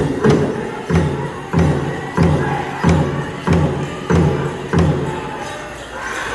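Pow wow drum struck in a steady beat of about three strokes every two seconds, the accompaniment for a chicken dance song. The drumming stops about five seconds in.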